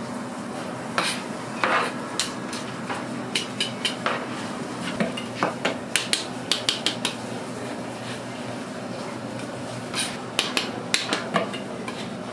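Steel knife blade tapping and scraping on a plastic cutting board as fish paste is spread and rolled, in clusters of sharp clicks about a second in, through the middle and again near the end, over a steady hiss.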